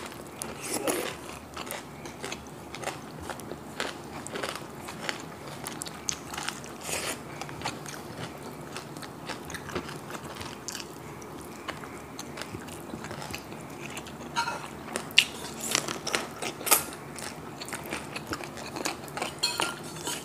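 Close-miked biting and chewing of crispy fried pork knuckle, a run of short crunches and crackles, loudest about fifteen to seventeen seconds in.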